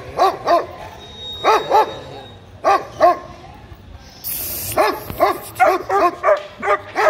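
German shepherd barking in short bursts of two or three, then a quicker run of barks near the end. A brief hiss sounds about four seconds in.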